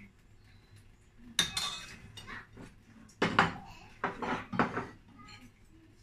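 A metal serving spoon and ceramic dishes clinking and knocking while rice is served from a pot into a bowl: a handful of sharp clinks, the first about a second and a half in, the loudest around three seconds in.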